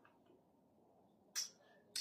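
Close-up eating sounds from chewing ice cream with a crunchy milk-chocolate glaze: a faint tick just after the start and one short, crisp mouth sound about one and a half seconds in.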